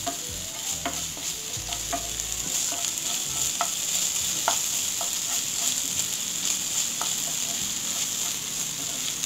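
Chopped onions, green chillies and ginger paste sizzling in oil in a nonstick frying pan, being fried until the ginger loses its raw smell. A wooden spatula stirs them, with irregular light clicks and scrapes against the pan.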